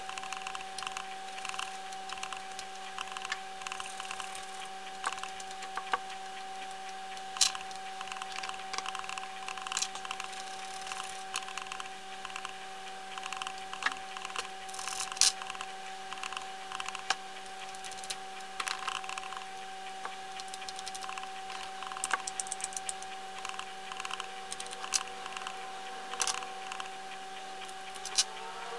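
Small clicks, taps and short scrapes of a wooden fingerboard deck and metal trucks being handled and fitted by hand, over a steady electrical hum.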